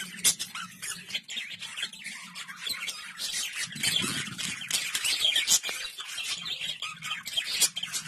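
Many budgerigars chirping and squawking together, a dense, continuous chatter of quick, high calls.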